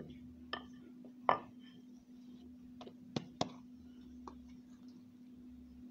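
A wooden rolling pin rolling out whole-wheat dough on a tiled counter, giving about six sharp knocks and clicks against the tiles over the first four seconds. A steady low hum sits underneath.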